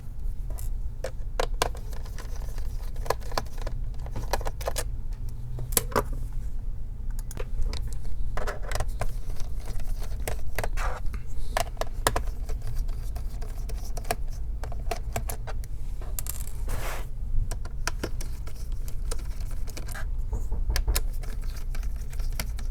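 Phillips screwdriver unscrewing the bottom-cover screws of a Dell Inspiron 3501 laptop: scattered small clicks and scrapes, with light metallic clinks of the loose screws, over a steady low hum.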